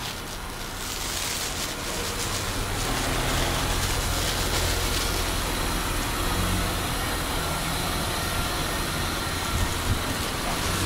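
A vehicle engine idling steadily, growing louder over the first few seconds, with street noise around it.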